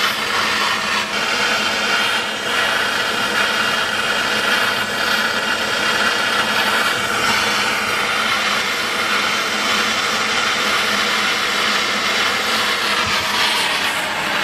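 Hand-held MAPP gas torch burning steadily with a loud rushing hiss, its flame played on a crucible to melt sterling silver.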